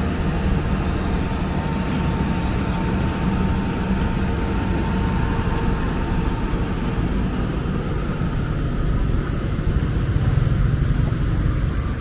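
Diesel engines of an asphalt paver and the dump truck feeding it, running steadily as a low rumble with a faint steady whine above it. The whine fades out about two-thirds of the way through.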